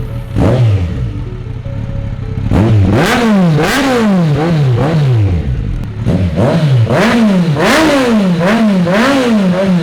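Kawasaki Versys 1000 SE's inline-four engine, breathing through an aftermarket exhaust with the catalytic converter deleted, being revved. After a short blip and a brief settle, from about two and a half seconds in, the throttle is blipped over and over, about two quick rises and falls in revs a second.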